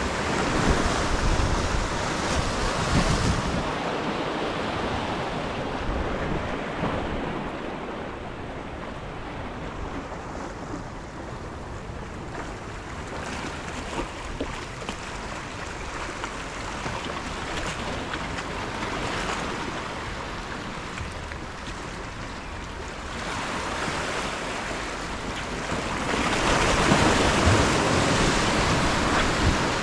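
Ocean waves washing and breaking along the shore, with wind buffeting the microphone. The wash swells louder at the start and again over the last several seconds.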